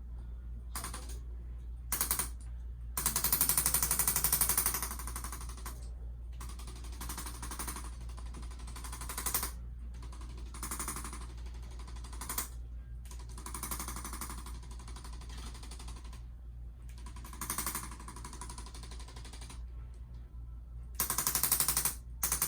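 ArthroStim electric adjusting instrument tapping the neck in rapid bursts of fast, closely spaced taps, the longest lasting about a second and a half, over a steady low hum.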